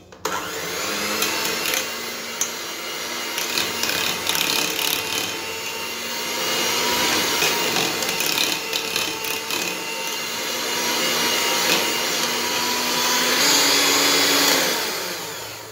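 Morphy Richards electric hand mixer running steadily, its beaters whisking ghee and condensed milk in a steel bowl, with scattered ticks of the beaters against the bowl. Near the end the motor rises slightly in pitch, then winds down and stops.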